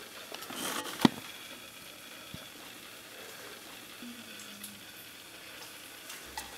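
Faint steady sizzling from a tray of cheese-topped biscuits fresh from the oven, with extra cheese melting on the hot pan. One sharp click comes about a second in, with a few fainter ticks later.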